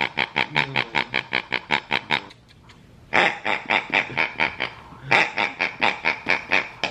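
Rubber pig squeaky toy squeezed over and over, giving rapid grunting oinks of about seven a second in three runs, the later two starting about three and five seconds in.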